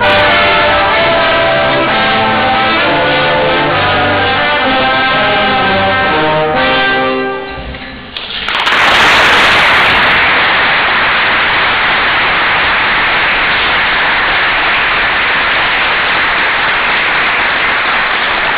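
Brass quintet of trumpets, horn, trombone and tuba playing the closing bars of a piece, ending on a held final chord about seven seconds in. The audience then applauds, loudest at the start of the applause and steady for the rest.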